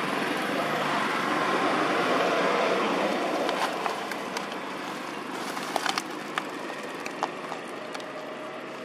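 A passing vehicle's rushing noise, loudest over the first three seconds and then fading, followed by scattered small clicks.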